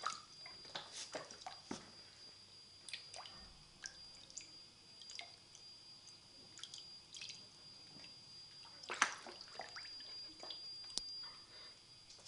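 Small irregular splashes and drips of water as a young mink paddles in shallow water in a plastic pool. A bigger splash comes about nine seconds in.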